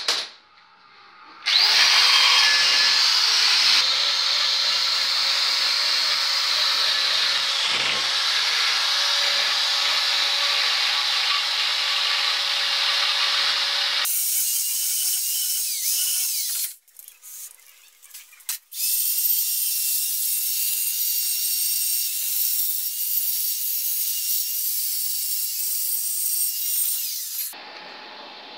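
Electric drill spinning a carbide burr, grinding out a crack in a cylinder head to prepare it for welding. It starts about a second and a half in and runs steadily. From about halfway the sound turns thinner and higher, stops briefly, then runs again until shortly before the end.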